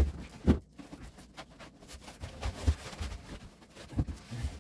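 Handling noise from unpacking a gaming chair's parts from their cardboard box: scattered knocks and rustling scrapes, with a sharper thump about half a second in.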